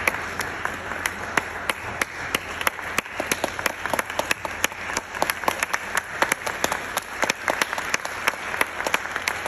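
Audience applauding steadily, with many single sharp claps from close by standing out of the general clapping.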